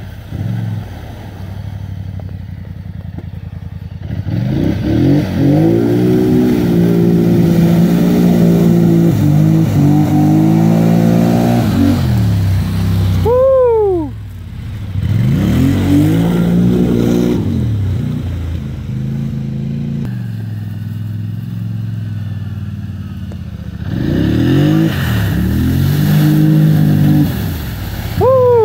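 2016 Polaris Sportsman 850 ATV's twin-cylinder engine revving up and down over and over as it pulls through deep mud, with two short sharp high revs, one about halfway and one at the end.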